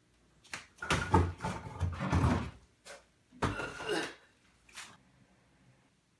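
Handling noises at an open chest freezer: lids and containers being shifted and knocked. Two bursts of clatter, from about half a second in and again around three and a half seconds, with a couple of single knocks between and after.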